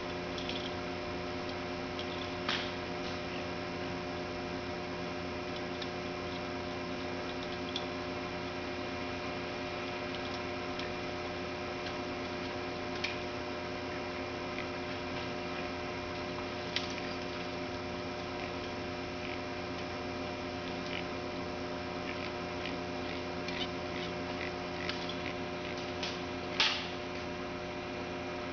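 A steady mechanical hum that holds several fixed pitches without change, with a few sharp clicks or knocks now and then; the loudest knock comes near the end.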